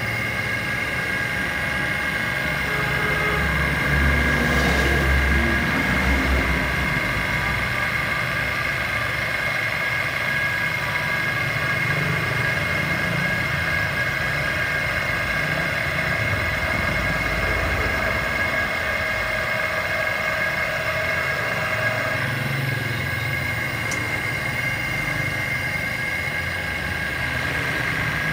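Electric motor and hydraulic pump of a hydraulic power unit running steadily under pressure, a constant whine over a low hum. It grows louder and deeper for a couple of seconds about four seconds in.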